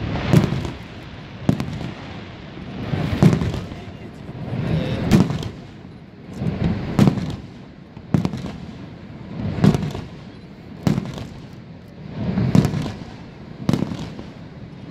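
Aerial firework shells bursting overhead: a string of sharp booms about one to two seconds apart, each trailing off in a low rumbling echo.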